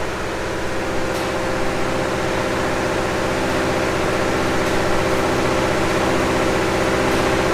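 An engine running steadily at an even speed, a constant humming drone.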